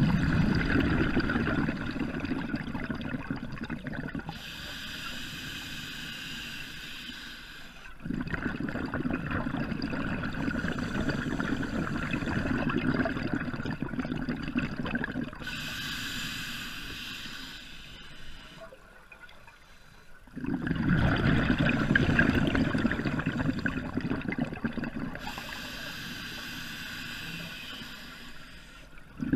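Scuba diver breathing through a regulator in three slow breath cycles. Each cycle is a long rush of exhaled bubbles, followed by the thinner hiss of an inhale. The bubbles start at the beginning, about eight seconds in and about twenty seconds in.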